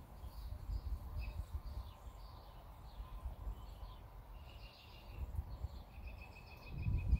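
Faint background noise: a low rumble with a few short bird chirps and trills, the clearest near the end.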